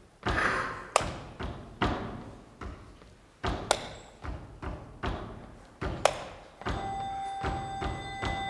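A series of heavy thuds, roughly one a second, each with a short echoing decay. About two-thirds of the way through, a steady ringing tone with several pitches comes in and holds.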